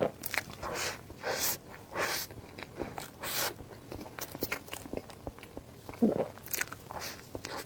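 Close-miked eating: biting and chewing, with crunches, wet mouth clicks and several short noisy bursts.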